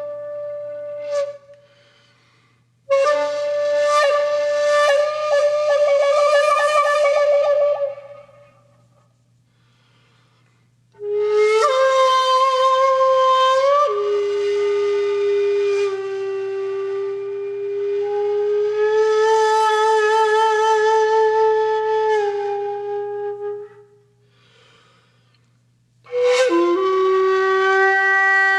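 Solo wind instrument music, flute-like: slow phrases of long held notes, some with vibrato, separated by pauses of two or three seconds.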